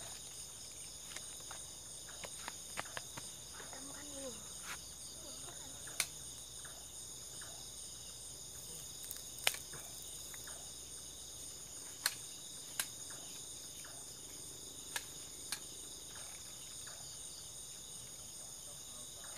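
A steady chorus of night insects, crickets, a layered high-pitched trilling that never lets up. A few sharp clicks stand out over it now and then.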